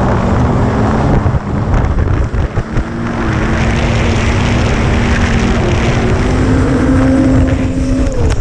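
Snowmobile engine running steadily while towing a skier, its pitch rising somewhat over the middle and dropping near the end. Heavy wind buffets the microphone throughout.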